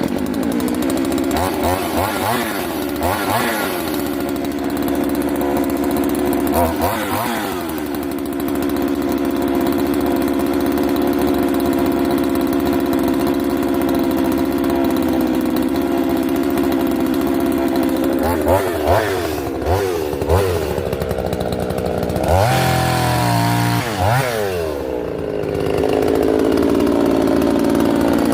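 Poulan 3800 Timbermaster 60cc two-stroke chainsaw running on a new carburetor and fuel lines, holding a steady idle and revved up and back down several times, with a quick run of throttle blips a little past the middle.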